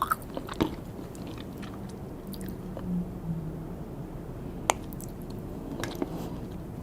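Close-miked chewing and wet mouth sounds of someone eating sushi and sashimi, with a few sharp clicks and a brief low hum near the middle.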